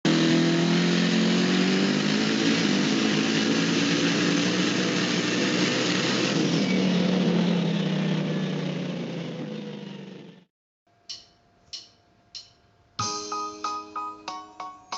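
A loud, steady mechanical drone with a low, even pitch fades out about ten seconds in. After a short silence come three short, sharp notes, and about thirteen seconds in keyboard music starts, with notes struck in a quick, even rhythm.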